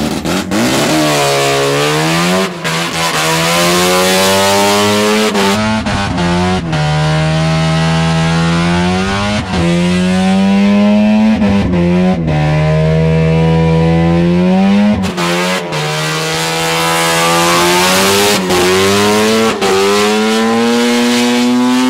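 Naturally aspirated 13B two-rotor rotary engine in a Suzuki Carry kei truck, revving hard while the truck is driven sideways around the track. Its pitch climbs and then drops sharply about every two to three seconds as the revs rise and fall.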